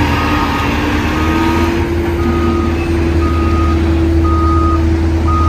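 Heavy multi-axle dump truck's diesel engine running steadily, with a reversing alarm beeping about once a second.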